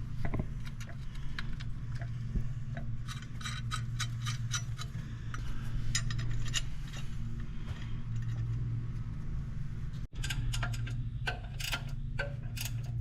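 Metal hand tools and bolt hardware clicking and clinking in quick clusters, over a steady low hum.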